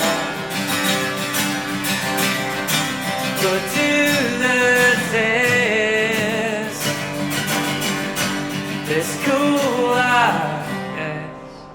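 Acoustic guitar played under a man's sung, held vocal notes in the closing bars of a song. The sound fades away near the end as the song finishes.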